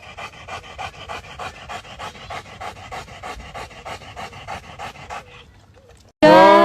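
A dog panting fast and steadily, about four to five breaths a second, fading out near the end. Then loud music with singing cuts in suddenly.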